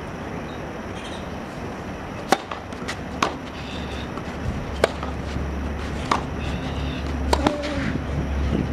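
Tennis rally on a clay court: sharp pops from racket strikes and ball bounces, roughly one every second or so, the loudest about two seconds in. A low rumble comes in about halfway through.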